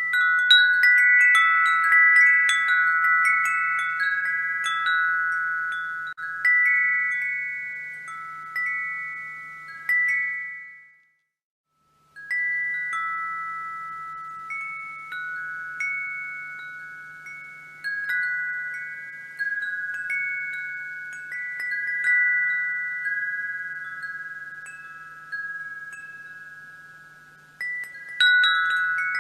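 Wind chimes struck again and again, several tuned high notes overlapping and slowly ringing out, over a faint low hum. About eleven seconds in, everything fades to silence for about a second, then the chiming starts again.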